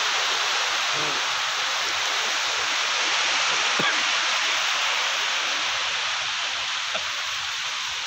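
Low sea surf breaking and washing up a sandy shore, heard as a steady hiss.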